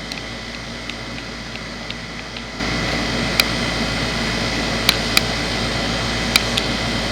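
Outdoor heat pump condensing unit running: a steady hum of the fan and compressor, which gets louder about two and a half seconds in. A handful of sharp, short clicks sound over it in the second half.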